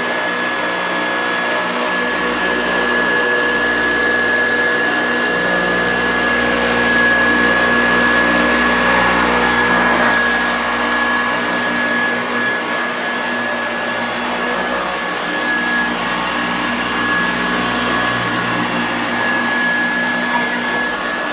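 1974 Hoover Junior 1346A upright vacuum cleaner, with its 250-watt motor, running steadily with a high motor whine as it is pushed over a thick pile rug, picking up scattered test debris; it gets a little louder midway.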